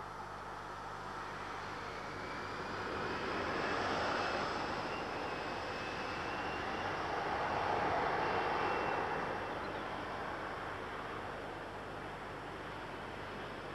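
Boeing 737 jet engines at take-off thrust as the airliner rolls away down the runway: a broad jet roar that swells twice and then eases off, with a faint high whine above it.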